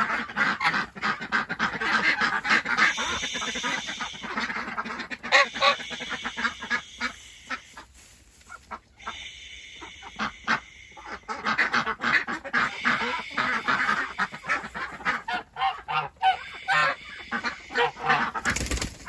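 Domestic geese honking and ducks quacking, a steady run of overlapping calls that thins out about halfway through and picks up again. A brief thump near the end.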